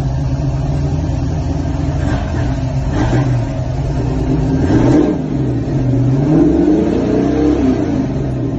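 Ford Performance Boss 347 small-block V8 idling and revved up and down several times by hand at the throttle linkage, with a knocking that the owner hears and a shop judged to come from inside the engine.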